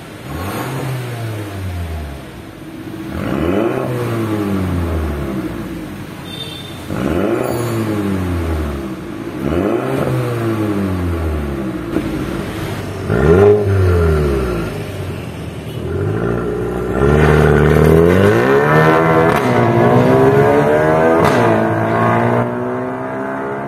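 Exhaust of a Mercedes-Benz A200 hatchback's turbocharged four-cylinder through an Armytrix cat-back valved exhaust. It gives a series of short free revs, each rising and falling in pitch, first with the exhaust valves closed and then with them open. Near the end comes a longer, louder stretch of wavering revs as the car accelerates away.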